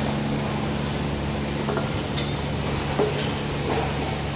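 Spot welding machine running with a steady hum, with short hiss-and-click sounds about two and three seconds in.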